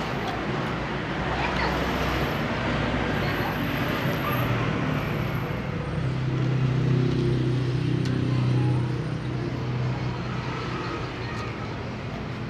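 Road traffic noise: a steady rush, with a motor vehicle's engine hum swelling about six seconds in and fading about three seconds later.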